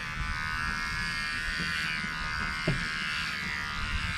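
Cheap electric dog hair trimmer buzzing steadily as it is run over body hair.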